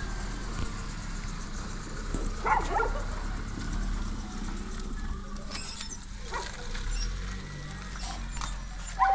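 An animal calling three times in short calls a few seconds apart, over a steady low hum.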